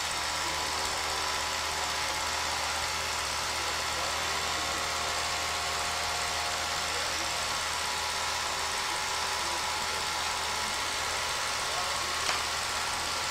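Steady background noise: an even hiss with a low hum and a few faint steady tones underneath, broken only by one short click near the end.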